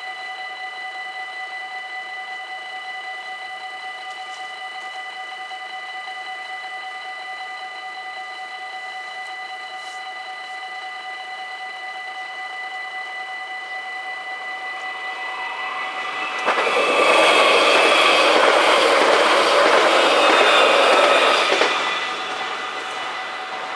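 Level-crossing warning bells ringing steadily. About sixteen seconds in, an electric passenger train passes the crossing, loud for about five seconds before fading. The bells keep ringing under the train and after it.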